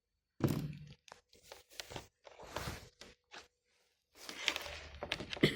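A laptop being handled and turned over on a table: a thunk about half a second in, then a string of lighter knocks and clicks, and scraping near the end.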